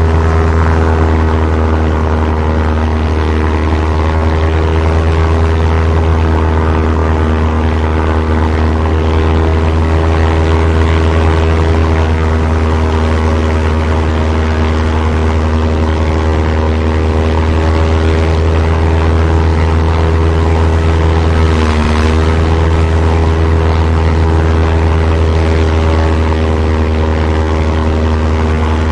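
Piston engines of a WWII-era propeller aeroplane running steadily in flight: a constant, even drone with a strong low hum. The pitch dips briefly about three-quarters of the way through.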